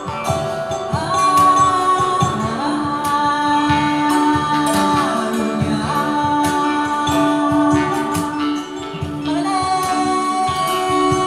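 Live folk music: a woman sings long, drawn-out notes that slide between pitches, over a steady low drone, plucked strings and a hand drum.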